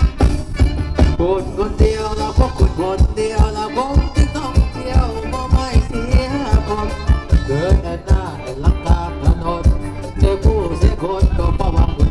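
Live band playing Phetchaburi ramwong folk dance music: a steady, quick drum beat under a wavering melody line, played through a PA system.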